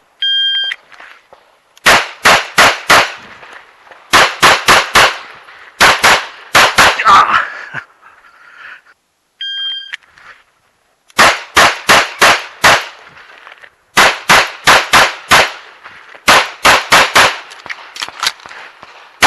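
A shot-timer start beep, then rapid strings of pistol shots in quick groups of about four, with short pauses between groups. A second timer beep about nine and a half seconds in starts another run of fast pistol strings.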